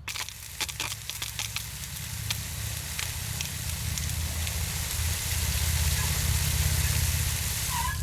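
John Deere X380 lawn tractor running with its 48-inch mower deck's blades engaged while water from the deck-wash hose port sprays around inside the deck. Steady engine and blade hum under a loud hiss of spraying water, with scattered ticks of water near the start, growing louder toward the end.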